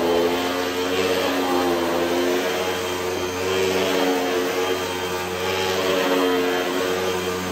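Hoover WindTunnel upright vacuum cleaner running on carpet, a super loud motor whine whose pitch and hiss swell and ease with each push and pull of the machine, about every two seconds.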